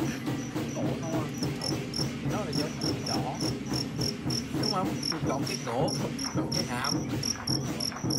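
Fighting crickets chirping in short, high, evenly spaced pulses, about three a second, over a low background murmur.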